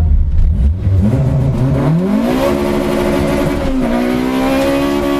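Honda Integra DC2's four-cylinder engine revving up under acceleration, then holding steady revs, with a brief dip in revs about four seconds in.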